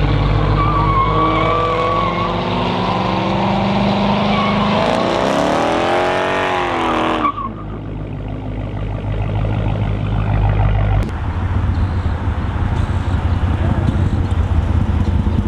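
Chrysler 300C's 5.7 L Hemi V8 exhaust running and being revved, the pitch climbing and dropping a few times. About seven seconds in it cuts off abruptly to a steadier low rumble, which grows louder about eleven seconds in.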